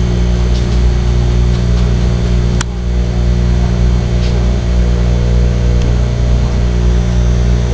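Steady low mechanical hum with several steady tones, unchanging throughout, and a single sharp click about two and a half seconds in.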